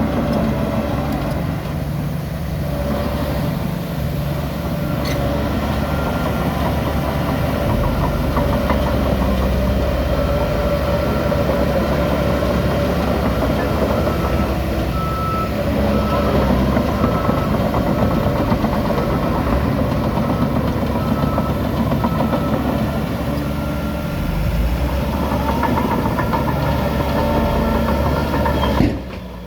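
Heavy diesel engine of earth-moving or haulage machinery running steadily under load, with a backup alarm beeping about once a second through the middle stretch.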